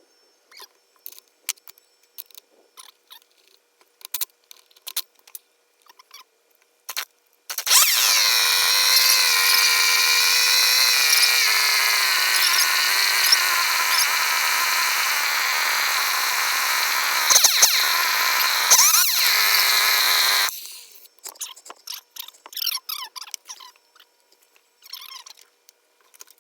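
Poulan-built Craftsman 3.7 two-stroke chainsaw running at high speed for about thirteen seconds after a stretch of small clicks and knocks. Its pitch sags a little partway through, flares briefly twice near the end, and then cuts off suddenly. The saw has just been rebuilt, with its carburetor overhauled.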